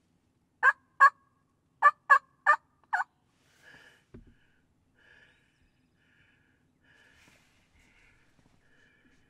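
A quick series of six short, sharp, loud turkey calls within the first three seconds. After them, faint high calling continues.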